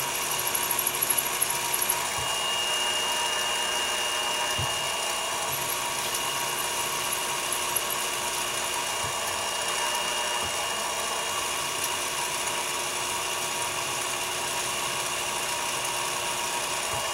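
Milling machine spindle running steadily as a twist drill bores through a metal workpiece lubricated with cutting oil. The cut is a steady whine of several tones, with a higher tone joining about two seconds in.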